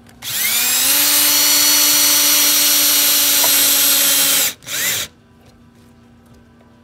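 Power drill run at full speed for about four seconds, spinning up to a steady pitch, then released and given a short second burst.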